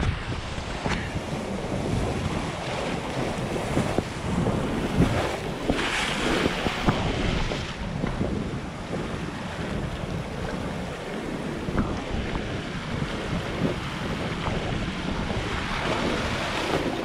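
Sea surf washing and breaking over a rocky shore, with wind buffeting the microphone. A wave surges in with a louder hissing wash about six seconds in.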